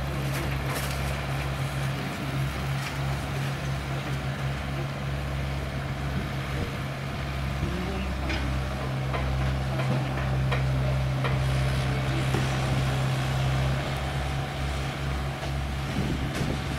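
Diesel engines of a mini excavator and a rail-going dump truck running steadily, a constant low hum that swells somewhat in the second half, with a few sharp metallic clinks.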